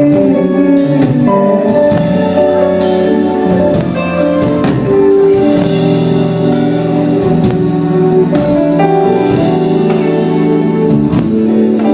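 Instrumental break in a Thai pop ballad, between sung lines: a band playing sustained keyboard chords over bass, with cymbal washes coming and going.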